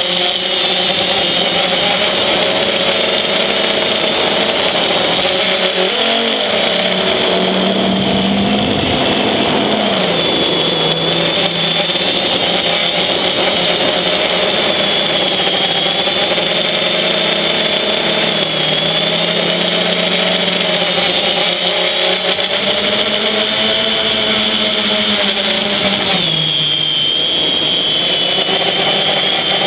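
FPV quadcopter's electric motors and propellers whining and buzzing, heard from the camera on the copter itself; the pitch rises and falls as the throttle changes while it manoeuvres, with a clear dip and recovery near the end.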